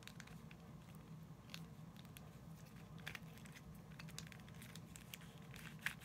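Faint, scattered plastic clicks of a stickerless twisty puzzle's layers being turned by hand, with a sharper click near the end, over a low steady hum.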